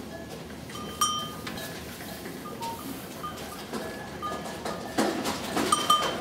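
Metal livestock bell clanking: one sharp ringing clank about a second in, a few light clinks, and another clank near the end, with some rougher scuffling noises shortly before it.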